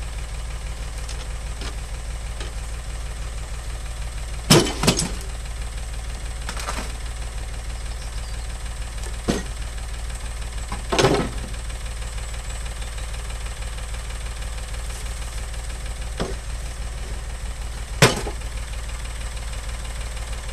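David Brown tractor engine idling steadily, with sharp metal clanks as heavy cut scrap pieces are dropped into its front loader bucket, about six times, loudest about four seconds in and near the end.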